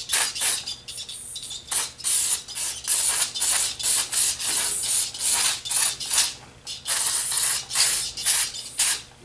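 Aerosol brake parts cleaner sprayed through its straw onto a drum brake backing plate in a string of short hissing bursts, roughly one or two a second; the can is nearly empty.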